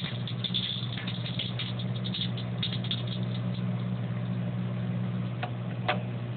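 Microwave oven running with a steady hum while a blank CD inside arcs, giving many short crackling snaps, thickest in the first few seconds and sparser later. The hum cuts off at the very end as the oven stops.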